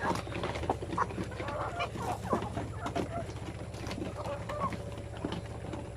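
A flock of free-range chickens clucking, with many short overlapping calls, over a steady low hum.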